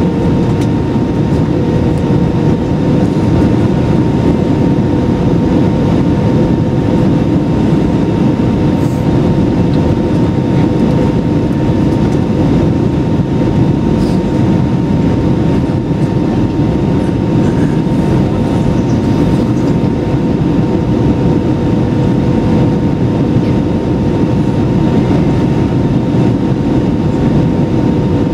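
Steady cabin roar inside an Airbus A320-200 in flight, heard from a window seat by the wing: jet engines and rushing air, with two faint steady hums, one about an octave above the other.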